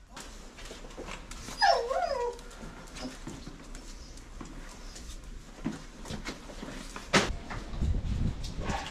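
A dog whines once, briefly, with a wavering pitch about two seconds in. Near the end there is a sharp knock followed by some rustling.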